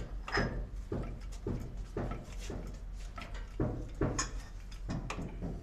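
Hydraulic bottle jack being hand-pumped with its lever, a short metallic knock at each stroke, about two strokes a second. The jack is lifting a railway coach's bogie frame.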